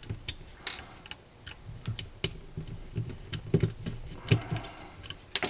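Irregular small clicks and taps of a Phillips screwdriver working small screws out of a replica lightsaber hilt, with the parts being handled.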